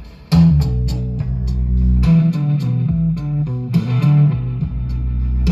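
Music with guitar and bass playing through a car stereo and its new Kenwood speakers, heard inside the car's cabin.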